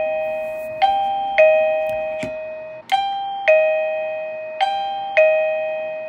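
Safeguard Supply ERA-DCRX doorbell receiver chiming a two-note ding-dong, high note then low, three times about two seconds apart, each note ringing out and fading. It is the receiver's alert that the paired ERA-UTX transmitter's button has been pressed.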